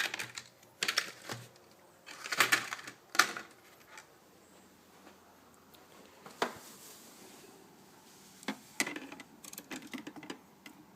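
Light plastic clicks and rattles as a Corsair Dominator Platinum DDR3 memory stick is handled and lined up with a desktop's memory slot: a run of clicks in the first few seconds, one sharp click past halfway, and more small clicks near the end.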